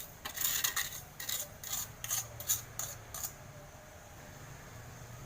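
Granulated sugar being spooned into a pot: a quick run of spoon scrapes and clinks for about three seconds, then only a faint low hum.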